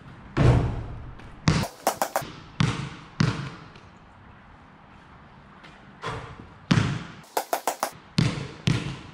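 Basketball bouncing on a concrete court: hard slaps, each with a short echo, in two groups a few seconds apart, each group including a quick run of close bounces.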